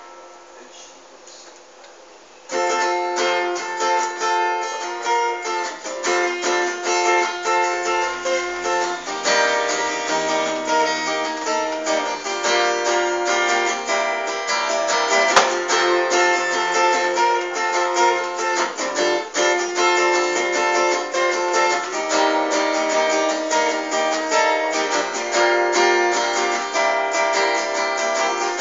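Solo acoustic guitar playing the opening of a blues song, without singing. It starts about two and a half seconds in and then plays continuously.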